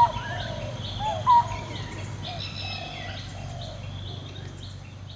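Several birds calling together: many short high chirps overlapping with lower, gliding warbled calls, and two loud short calls, one right at the start and one about a second and a half in, over a steady low background hum.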